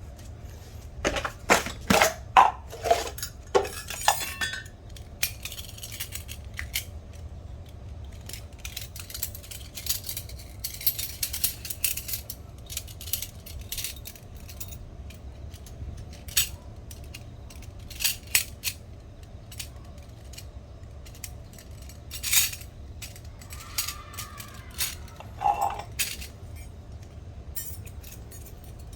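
Metal cutlery and tableware clinking and tapping in scattered strikes, with a quick run of ringing clinks in the first few seconds, over a steady low hum.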